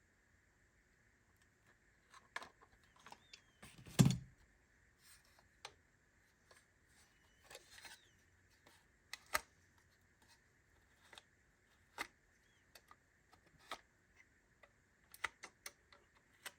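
Scattered clicks and taps of small metal parts as a Ford Model T ignition switch is tightened and handled, with one louder knock about four seconds in.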